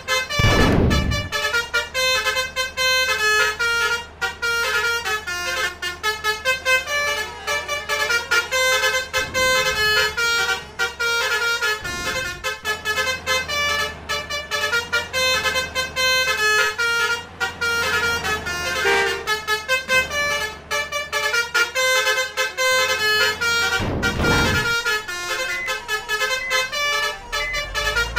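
Bus 'telolet' musical air horns playing rapid stepping tunes of several tones at once, over and over, with a few loud rushes of vehicles passing by.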